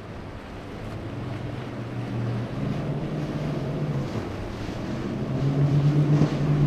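Motorboat engine running steadily, growing louder toward the end, over gusting wind on the microphone and choppy waves.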